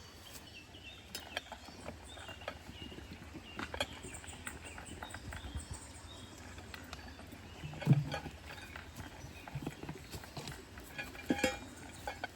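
Scattered clicks and knocks over a faint outdoor background, with a louder low thump about eight seconds in and another few knocks near the end.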